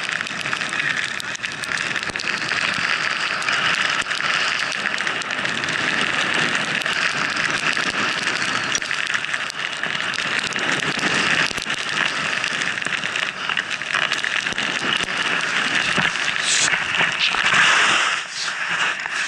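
Skis sliding fast through fresh powder snow, a steady rushing hiss mixed with wind on the helmet camera's microphone. Near the end the sound drops sharply as the skier goes down into the snow.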